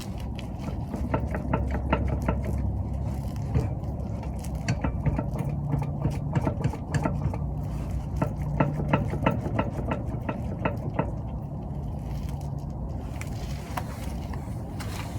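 A motor running steadily with a low hum, under many irregular clicks and rattles.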